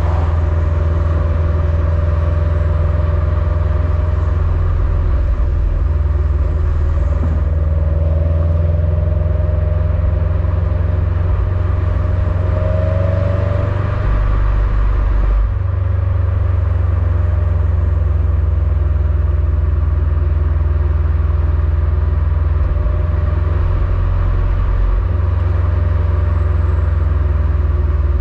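Stock exhaust of a 2021 Subaru WRX STI's turbocharged 2.5-litre flat-four, heard right at the quad tailpipes while driving: a steady deep rumble. About halfway through the engine note changes and the level dips briefly before the rumble settles back in.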